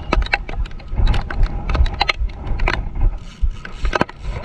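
Spinning reel's drag clicking in irregular spurts, several clicks a second, as a hooked giant trevally pulls line off against it, over a steady low rumble of wind on the microphone.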